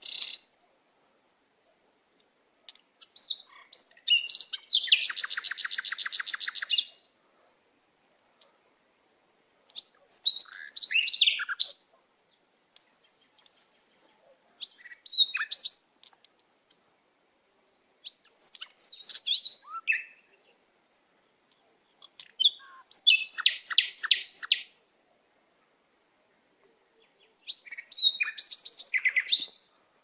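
Songbird song in six separate phrases of a second or two each, high chirps, whistles and fast trills, with complete silence between the phrases.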